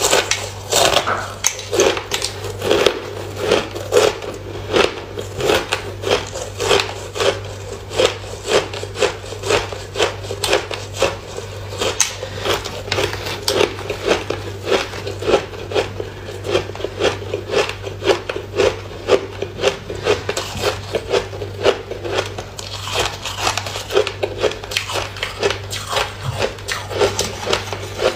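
Chunks of freezer ice being bitten and chewed close to the microphone: a run of sharp, regular crunches, about two a second, over a steady low hum.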